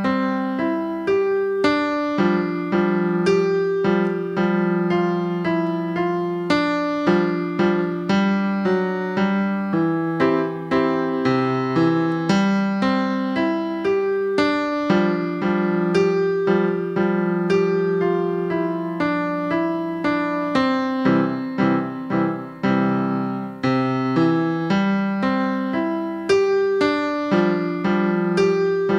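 Electronic keyboard on a piano voice playing a simple melody over held low notes, each note struck cleanly and fading away.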